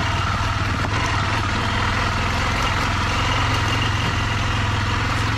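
Yamaha XT600E's single-cylinder four-stroke engine running steadily, with no revving up or down.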